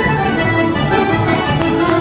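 Accordions and a violin playing a Serbian folk dance tune live, with a repeating bass pattern underneath.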